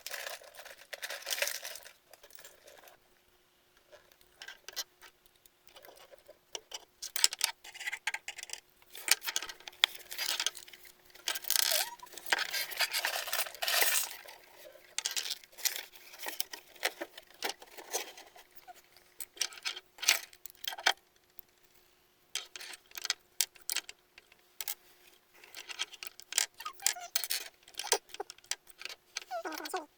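Plastic construction-toy pieces clicking, rattling and clattering as they are handled and snapped together, in irregular runs with short pauses.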